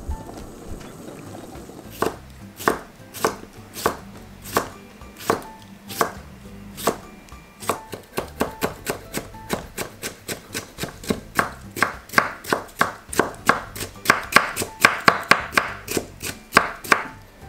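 Kitchen knife cutting a cucumber into thin strips on a wooden cutting board: slow single cuts at first, then a quicker run of about three cuts a second, loudest near the end.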